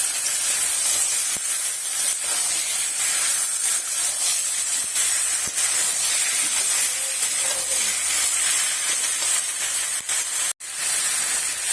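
Potatoes, pointed gourd and ridge gourd in onion-tomato masala sizzling with a steady hiss in a hot pan while being stirred. The sound briefly cuts out near the end.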